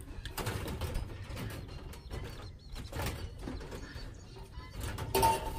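Clattering and scraping of a plastic water jug being handled against a galvanized metal trough and wire rabbit cage, with a short squeak near the end.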